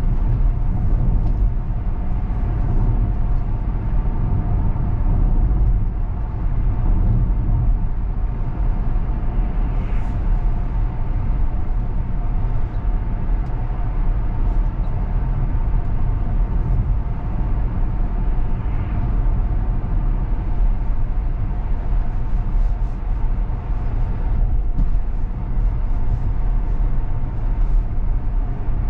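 Road and tyre noise heard inside the cabin of a Tesla Model X electric SUV driving along a country lane: a steady low rumble with a faint steady hum over it, and a brief tick about ten seconds in.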